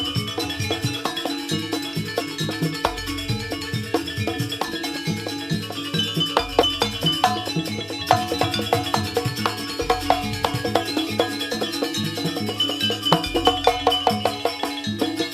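Javanese jaranan gamelan music: fast, dense percussion strikes over sustained pitched tones, with a deep low stroke about every three and a half seconds.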